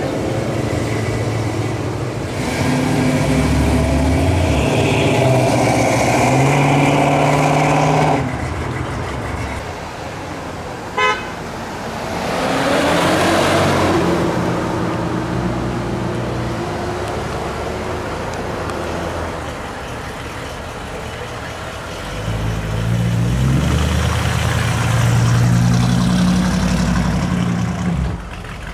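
Classic American cars' engines rumbling as they drive past at low speed, with a short, sharp horn toot about eleven seconds in. The rumble of a black 1964 Chevrolet Impala rises again in the last six seconds as it pulls by.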